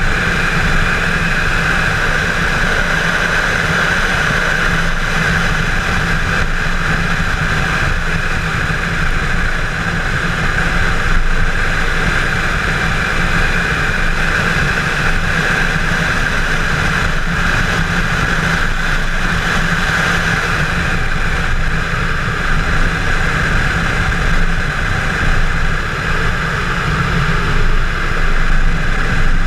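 Chevrolet Camaro 1LE driven hard on a road course: a steady, loud mix of engine, wind and tyre noise.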